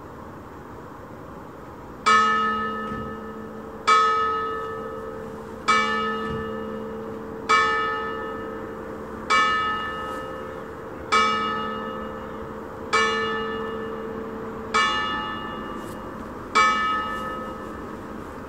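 A bronze church bell, one of a 1798 Bonavilla peal of three tuned in A, swinging and striking nine times about every two seconds. Each stroke rings out and fades before the next. A steady low background noise runs underneath.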